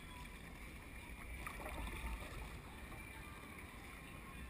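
Faint, steady sound of ocean chop lapping against a kayak's hull, with a low rumble of wind on the microphone.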